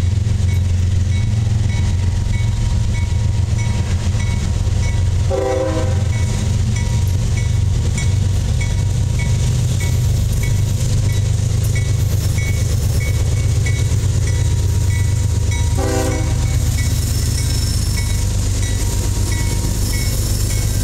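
Lead CSX GE ES40DC diesel-electric locomotive and trailing units running loud under load as they pass close by, pulling the train out of the siding, with a steady low engine drone. A grade-crossing bell rings steadily about twice a second. Two short horn blasts come about five seconds in and again some ten seconds later.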